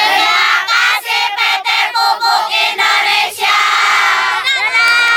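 A group of children shouting a cheer together in unison: a quick run of short chanted syllables, then longer drawn-out calls.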